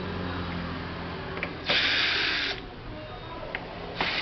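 Screwdriver backing out the back-cover screws of a Samsung 32-inch LED TV, heard as short buzzing bursts under a second long, one about two seconds in and another starting at the end.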